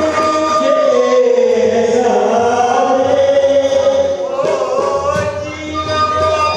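A man singing long, drawn-out melodic phrases that glide up and down in pitch, with a harmonium holding steady notes underneath.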